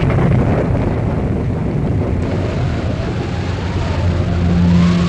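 Radio sound-effects wind machine, a cloth-covered drum in a wooden frame turned by a hand crank, imitating wind as a steady rushing noise whose pitch rises and falls near the end. A low steady hum joins it about four seconds in.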